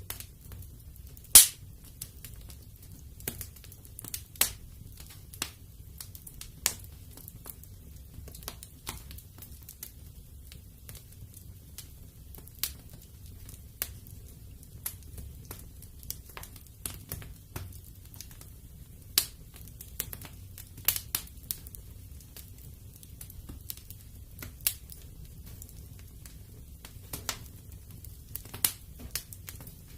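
Wood fire in a fireplace crackling, with irregular sharp pops, the loudest about a second and a half in, over a low steady rumble.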